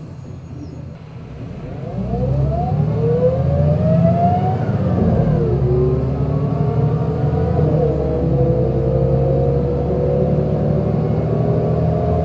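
MAN SL202 CNG city bus pulling away and accelerating: the engine and driveline note rises steadily, drops briefly about five seconds in as it changes up a gear, then climbs slowly again under load.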